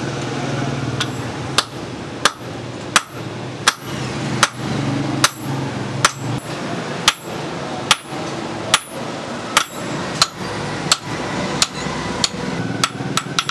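Hand hammer striking a red-hot steel hammer head on an anvil in steady, even blows, about one and a half a second, starting about a second in. The hot end is being drawn out flat into an axe blade.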